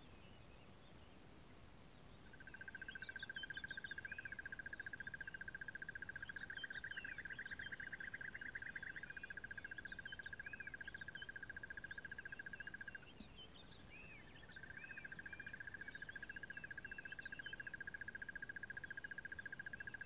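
Outdoor ambience of many small bird chirps and calls, under a long, steady, high-pitched trill that starts about two seconds in, breaks off about two-thirds of the way through, and starts again a second or so later.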